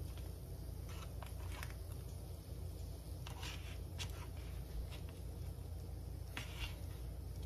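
Metal fork scraping and tapping against a plastic food container and a paper plate while scooping food, a handful of short clicks and scrapes over a steady low hum.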